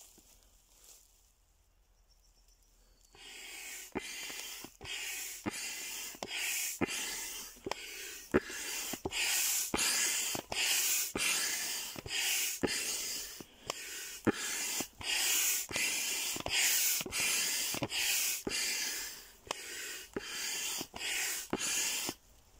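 Hand pump pushing air through a hose into a large inflatable duck: regular strokes of rushing air, about three every two seconds, each starting with a sharp click. The pumping begins about three seconds in.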